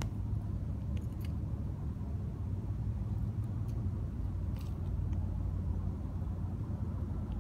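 Steady low rumble of background noise, with a few faint clicks about a second in and again past the middle.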